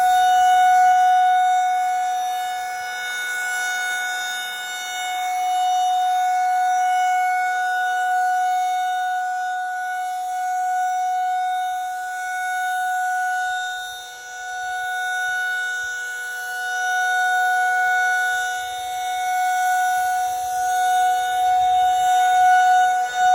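Federal Signal 2001-SRNB rotating electromechanical warning siren sounding a steady tone. The pitch holds constant while the loudness swells and fades about every six seconds as the rotating horn sweeps past.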